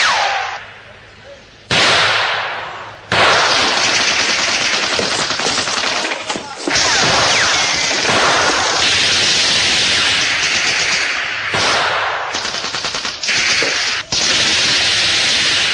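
Machine-gun fire in long, near-continuous bursts, with short breaks a few times. In the first three seconds there are two loud bangs that ring and die away before the steady firing takes over.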